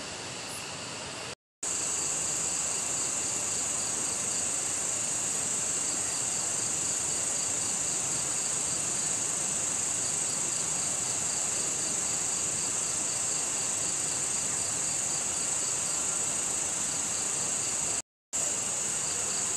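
Dense chorus of night insects, crickets among them: a steady high shrill with a quicker pulsing trill beneath it. The sound breaks off for a split second twice.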